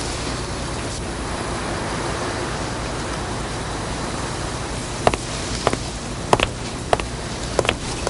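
Steady hiss with no speech. From about five seconds in, a run of short, sharp taps or clicks comes at irregular intervals.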